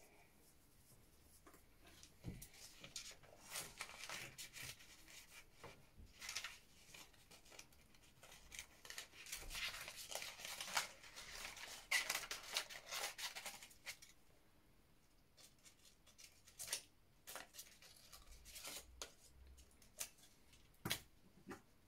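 Small children's scissors cutting paper, faint: a quick run of snips and paper rustling through the first half or so, thinning out to scattered single snips and rustles near the end.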